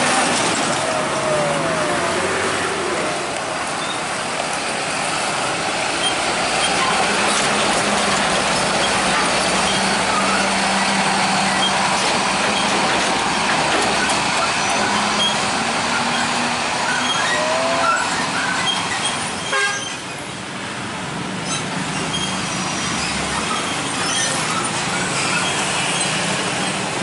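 Diesel engine of an Isuzu Giga box truck running at low speed as it crawls over a railway level crossing, among motorcycle and traffic noise; a single sharp knock about twenty seconds in.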